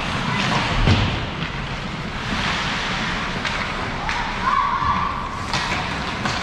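Ice hockey game sounds in an indoor rink: skates scraping the ice and sharp clacks of sticks and puck, with a heavier thud about a second in.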